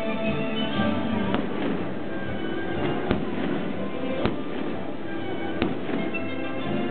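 Fireworks bursting overhead: four sharp bangs, one every second or so, over music playing steadily.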